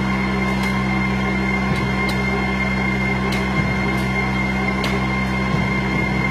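Fresh leafy-vegetable sorting machine running: a steady electric hum with a thin high whine. A few faint sharp clicks come now and then.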